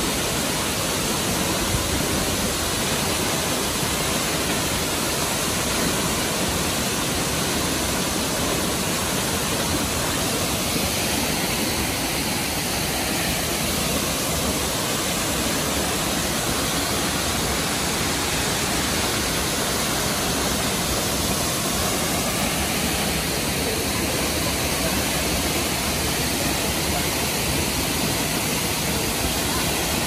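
Dambri Waterfall, a tall waterfall, pouring onto rocks and into its plunge pool: a steady, unbroken rush of water noise.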